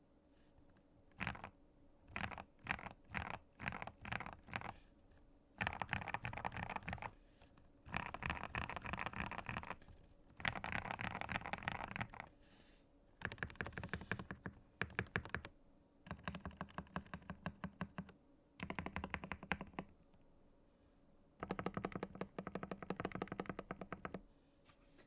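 Typing on a GMK67 mechanical keyboard fitted with Gateron G Pro milky yellow linear switches in a plastic case. About eight single keystrokes open the sequence, followed by seven bursts of fast typing separated by short pauses.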